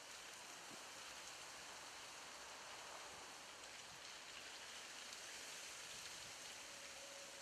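Faint, steady outdoor background hiss with a few faint ticks; no distinct sound from the cat.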